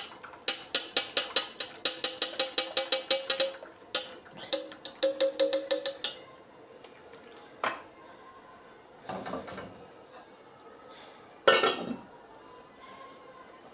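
A metal spoon stirring in a cup, clinking fast and evenly about five times a second with a light ringing, and stopping about six seconds in. Later comes a short rattle, and near the end a lidded steel pot is set down on the gas hob's grate with a clank.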